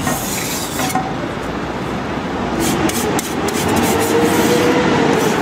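Steady street traffic noise. Over the last couple of seconds a passing vehicle's engine note rises and falls. A metal spatula scrapes across the hot griddle in short strokes as the egg crepe is loosened and folded.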